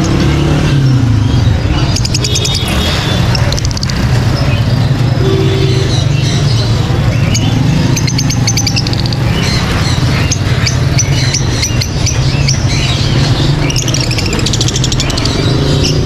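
Many caged small birds chirping and chattering in quick, rapid trills, over a loud, steady low hum.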